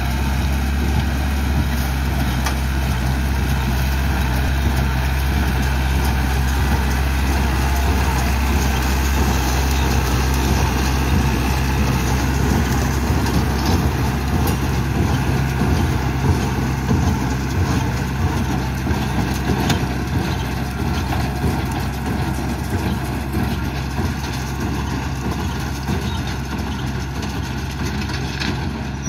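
New Holland TT75 tractor's diesel engine running steadily, driving a small Massey Ferguson baler through corn stalks.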